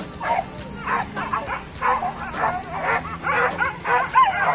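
Several leashed hunting dogs yelping excitedly as they strain to be let loose, a quick run of short, wavering high yelps overlapping one another.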